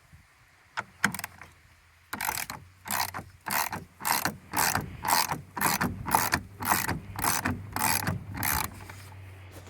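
Hand ratchet wrench loosening a nut: about a dozen back-and-forth strokes, roughly two a second, each a quick run of pawl clicks.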